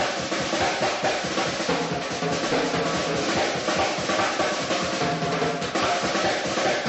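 Snare and bass drums playing a fast, rolling beat.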